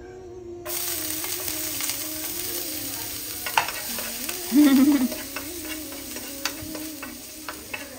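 Chopped garlic sizzling in melted butter in a non-stick frying pan, the hiss starting suddenly under a second in as the garlic goes in. A metal spoon stirs and clicks against the pan throughout. A brief louder wavering tone comes about halfway through.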